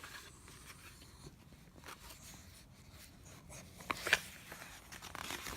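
Faint paper rustling and a few light clicks, with two sharper clicks about four seconds in: a picture book's pages being handled and turned.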